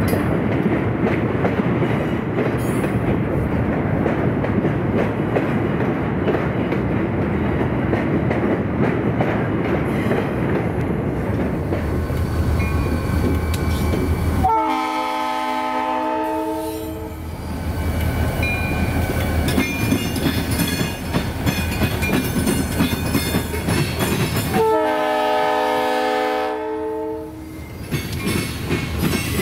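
A freight train rumbles and clatters along the rails. About halfway through, the EMD SD45T-2 locomotive's multi-chime horn sounds two long blasts, each about two and a half seconds, some ten seconds apart.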